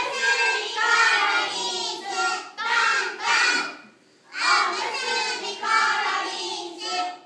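Young children singing a song in phrases, with two short breaks between lines.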